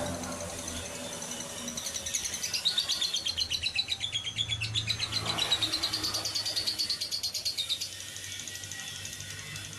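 Lovebird singing a long, fast chattering trill of high chirps that swoops up and down in pitch.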